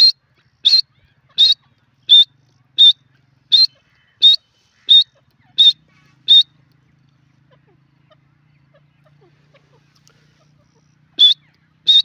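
Grey francolin calling: a run of about ten short, high notes, evenly spaced at about three every two seconds, that stops about six seconds in. The calling starts again near the end.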